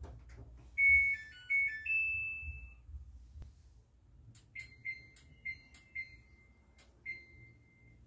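Samsung EcoBubble washing machine's control panel playing its short power-on melody of a few electronic tones, then five short beeps, each with a button click, as the wash settings are changed.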